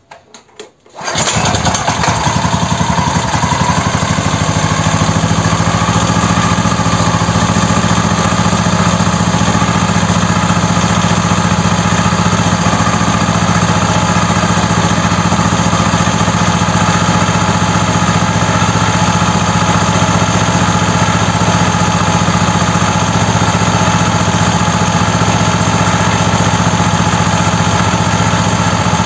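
Brand-new BRAIT 17 hp single-cylinder petrol engine being started by its pull cord for the first time. It catches about a second in and then runs steadily and evenly.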